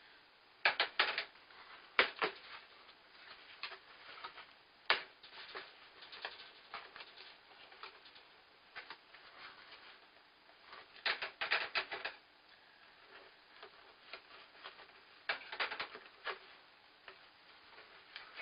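Light plastic sport-stacking cups clicking and clattering as they are handled, in short bursts of rapid clicks with softer tapping between them.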